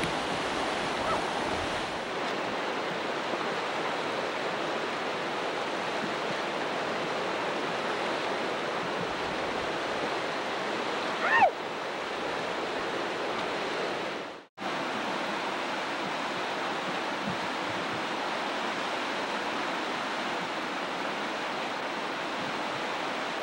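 Steady rush of whitewater from the Potomac River's Rocky Island Wave, a churning river rapid. About halfway through a short, louder high sound rises briefly over it, and a few seconds later the sound cuts out for a moment before the rush returns.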